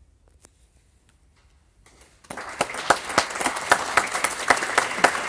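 A hush with a few faint clicks, then audience applause begins a little over two seconds in and carries on as steady clapping.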